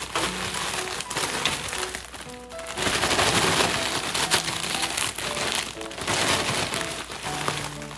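Light background music with short plucked-sounding notes, over the crinkling of plastic food packaging being handled.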